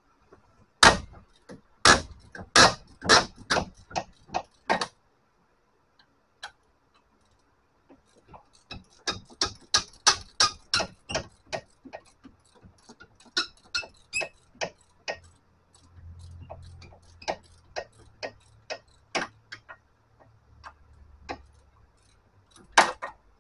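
Ratchet wrench clicking as a hub bearing mounting bolt is backed out. A few loud clicks come first, then a fast run of sharp clicks, about four a second, then scattered ones.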